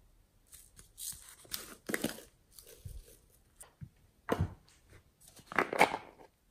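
Small plastic containers handled by hand, giving a few short rustles and clicks. Near the end a jar of pink foam beads is picked up and its plastic lid pulled off, which makes the loudest clatter.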